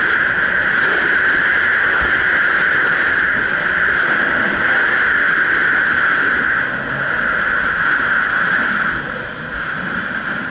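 Jet ski running across the water: a steady engine drone mixed with rushing water, easing off somewhat about two-thirds of the way in and again near the end.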